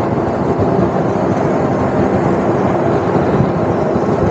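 Steady rush of wind and road noise from riding an electric Razor mini dirt bike at road speed, with a faint steady tone underneath.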